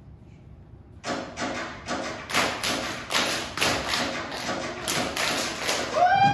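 Dancers' body percussion: sharp claps and slaps in a steady rhythm, about three hits a second, starting about a second in. Music comes in near the end.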